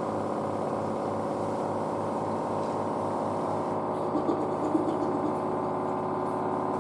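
Front-loading washing machine in a high-speed spin at about 1200 rpm: a steady motor whine with a hum beneath.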